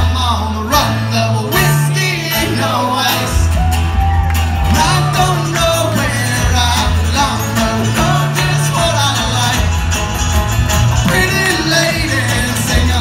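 Live acoustic string-band music: a strummed acoustic guitar and a banjo over a bowed or plucked cello bass line that shifts in steps, played loud through a hall PA.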